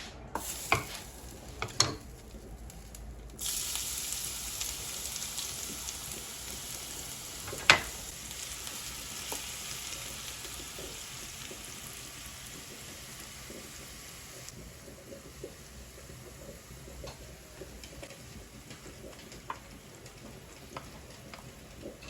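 Chopped onion sizzling in hot oil in a frying pan, the sizzle starting suddenly about three and a half seconds in after a few light clicks. There is a single sharp knock about eight seconds in, and the sizzle settles to a softer, steady level about fifteen seconds in.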